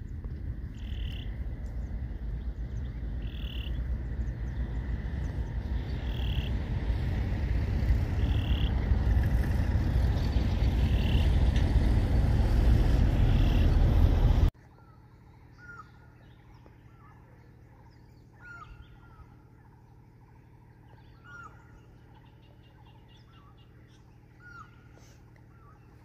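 Loud low rumbling noise that grows steadily louder, with a short high call repeating about every two and a half seconds. After an abrupt cut about halfway, a much quieter forest background in which an Asian koel gives its short rising call about every three seconds.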